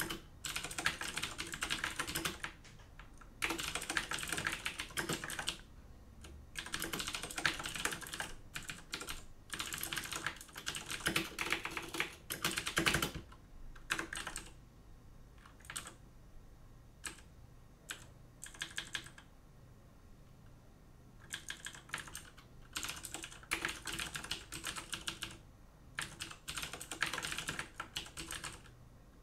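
Typing on a computer keyboard in bursts of rapid keystrokes, with short pauses between bursts and a quieter stretch of scattered single key presses about two-thirds of the way through.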